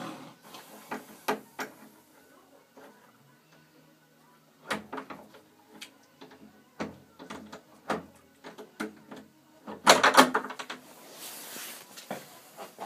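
Metal bolt on a stable door rattling and clicking as a horse works at it with its lips and teeth, in irregular clicks spread over several seconds. A louder, denser cluster of rattles comes about ten seconds in.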